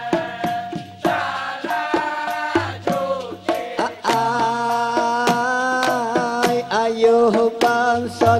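Dikir barat singing: male voices, lead and chorus, in long held and bending notes, over sharp rhythmic hand claps and percussion hits.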